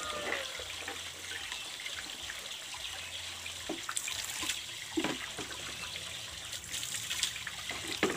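Water running and trickling from a plastic pipe outlet into buckets during hand laundry, with a few knocks of plastic buckets being moved and set down.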